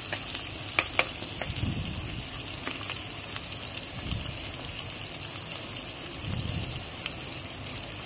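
Onions and tomato sizzling in oil with a little water in a non-stick wok, stirred with a wooden spoon. Two sharp clicks come about a second in, with softer stirring strokes after.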